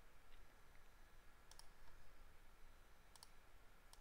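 A few faint computer mouse clicks against near silence: room tone.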